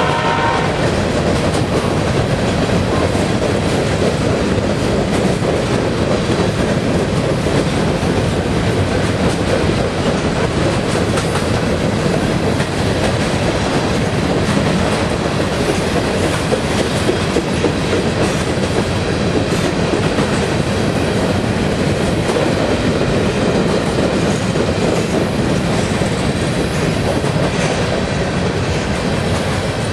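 Freight train of covered hopper cars rolling past: steady clatter and rolling noise of steel wheels on the rails, unchanging throughout.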